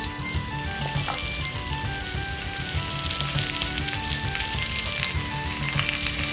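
Food sizzling and crackling in a hot pan over a campfire, a steady frying hiss under background music.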